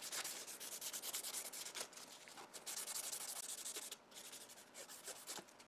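A strip of 1000-grit sandpaper rubbing quickly around the copper commutator of a Triumph Spitfire wiper motor's rotor, a faint fine rasping. It comes in two spells, with a short pause about two seconds in, and mostly stops after three and a half seconds.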